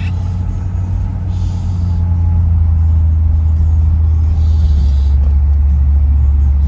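1957 Ford Thunderbird's V8 engine running steadily through mellow mufflers, a deep, even rumble heard from inside the car. The engine is still cold, a few minutes after a cold start.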